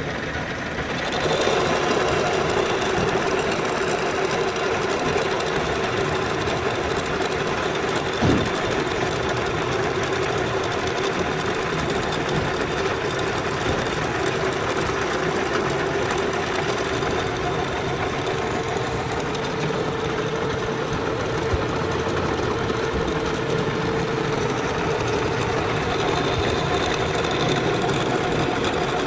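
Lathe machine running steadily with a mechanical whir and a steady hum, growing louder about a second in; a single short knock about 8 seconds in.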